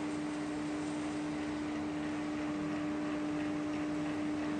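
S&T TIPL-4 precision tool room lathe running with its power cross feed engaged, the cross slide moving in the reversed direction. A steady mechanical hum with one strong held tone.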